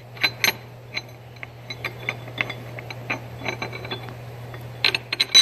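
Steel hydraulic cylinder parts being handled on a workbench: a run of short clicks and knocks of metal on metal, with a quick cluster of louder knocks near the end, over a steady low hum.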